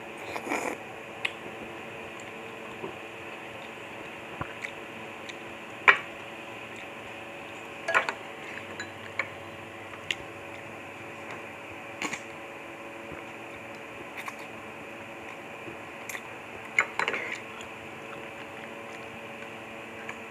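Close-up eating sounds of a person eating lomi noodles with a spoon and fork: short sharp clicks and brief clusters of mouth and utensil sounds every second or two, over a steady background hum.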